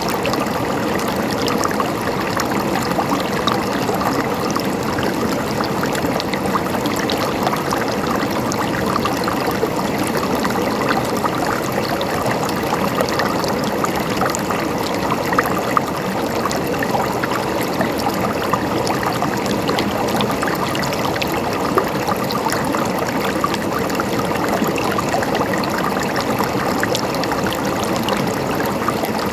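Mountain stream flowing, a steady babble of water with many small splashes throughout.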